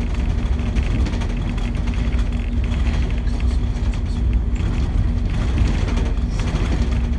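Cabin sound on the upper deck of a New Routemaster hybrid double-decker bus under way: a steady low rumble of drivetrain and road, with a steady hum.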